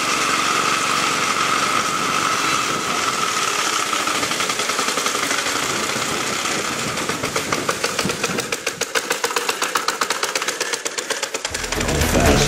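1920 Briggs & Stratton Flyer's single-cylinder Motor Wheel engine running as the car drives along, its rapid, even firing pulses becoming distinct about halfway through. Music comes in near the end.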